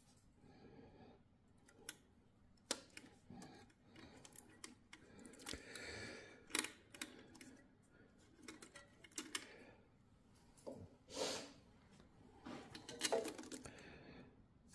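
Side cutters snipping cable ties, and wire leads with crimped ring terminals being handled in a steel terminal box: scattered sharp clicks and short rustles.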